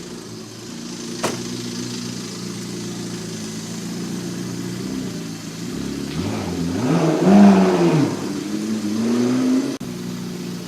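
McLaren MP4-12C's twin-turbo V8 idling, then revving up and back down about seven seconds in. It rises again and cuts off sharply near the end.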